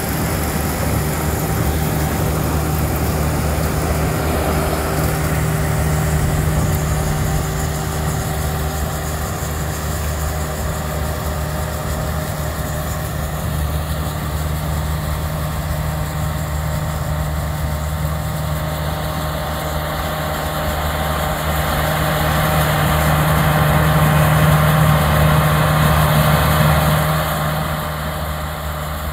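Claas Crop Tiger 40 combine harvester running steadily while it cuts and threshes maize: a constant engine and machinery drone. It grows louder for a few seconds near the end, then drops off.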